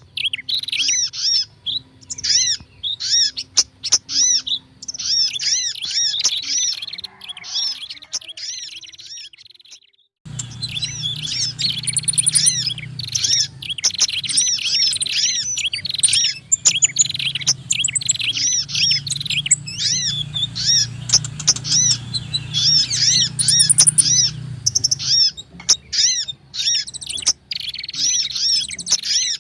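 A noisy, dense chatter of small birds, a prenjak (prinia) combined with sogon and kolibri sunbird calls in a bird-lure recording: quick, repeated, arching chirps that overlap continuously. About ten seconds in, the chatter drops out briefly, then resumes over a low hum.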